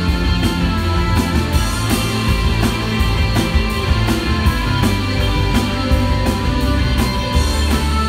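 Live rock band playing, with electric guitars over bass and a steady drum beat.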